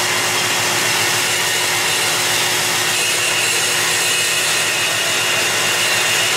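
Belt grinder running with a hardened steel adze held against the belt at the small wheel during finish grinding: a steady grinding hiss with a thin high whine.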